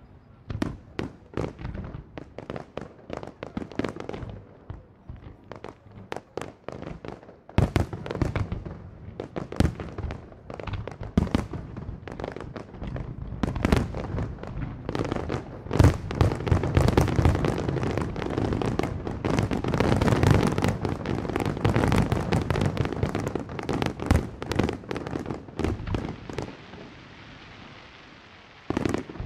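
Fireworks display: aerial shells and comets bursting in rapid succession, with sharp bangs through the first half. The bursts come thick and overlapping about halfway through, then thin out near the end.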